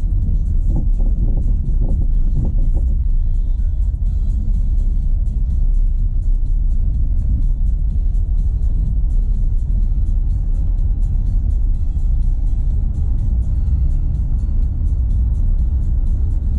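Renault Sandero Stepway 2 driving on a dirt road: a steady low rumble of tyres and body over the rough surface, with a run of short knocks in the first few seconds. The knocks are the kind of small suspension knock from the right side that the car is being tested for, with music playing underneath.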